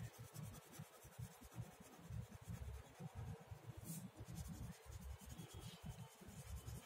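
Faint scratching of a red crayon colouring in on a paper worksheet, in quick back-and-forth strokes.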